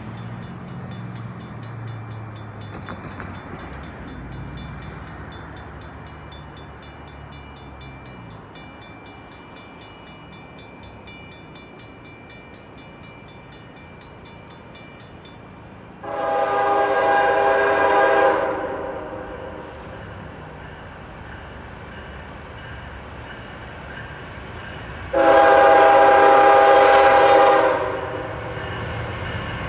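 A Norfolk Southern diesel freight locomotive approaches with a low engine rumble. It sounds two long, loud horn blasts, one about halfway through and one near the end. This is the opening of the long-long-short-long grade-crossing signal.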